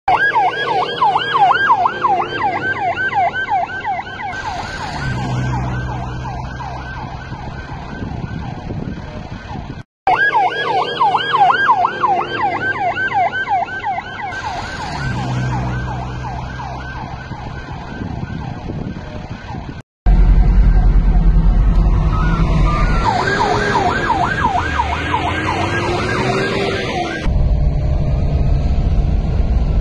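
Emergency vehicle siren in a fast, rapidly rising and falling yelp over vehicle rumble, broken by two brief cuts. In the last part a heavy low rumble dominates and the siren is fainter.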